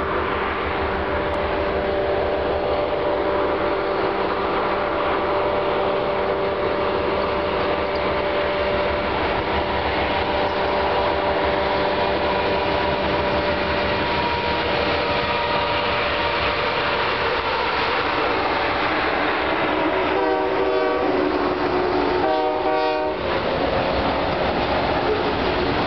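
Union Pacific diesel freight locomotives crossing a steel trestle bridge, their air horn sounding loud and long over the rumble of engines and wheels. The horn breaks into rapid pulsing twice near the end, and the autorack cars roll on with a steady rumble and clatter.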